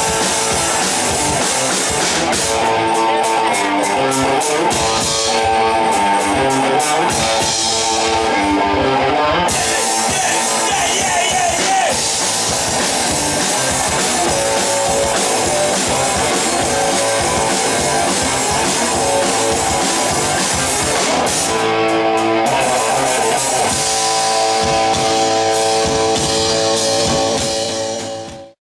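Rock band playing live: electric guitar, bass and drum kit, with the music fading out quickly at the very end.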